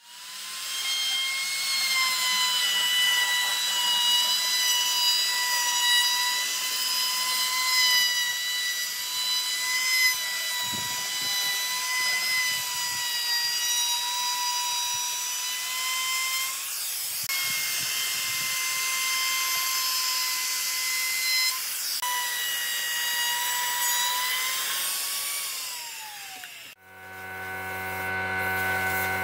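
Makita trim router running with a high-pitched whine as it cuts into a wooden tabletop, easing off briefly twice, then its pitch falls as it winds down near the end. A steady low hum follows.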